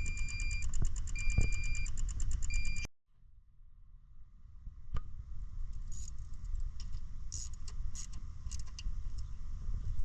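An electronic warning chime beeping at a steady pace, roughly once every second and a quarter, until it cuts off suddenly about three seconds in. After that, quieter clicks and rattles of keys and handling.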